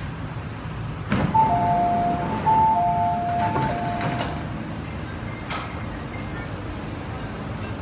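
MTR East Rail Line R-Train door-closing warning: alternating high and low beeps for about three seconds over the stopped train's steady hum, ending in a few sharp knocks as the doors shut, with another knock a second and a half later.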